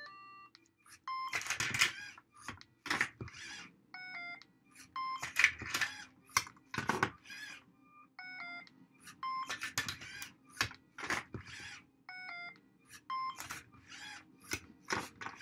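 A LEGO robot hub's speaker playing short beeping tone sequences of a few notes again and again, amid the clicking and clattering of a LEGO robotic arm's motors and gears and of plastic cubes being gripped and dropped as it sorts them by colour.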